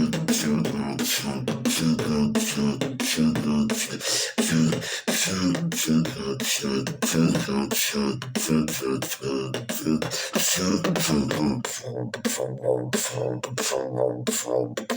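A person beatboxing a fast drum-and-bass rhythm from 'boots and cats' sounds: sharp vocal kick, snare and hi-hat hits over a pitched hummed bass line.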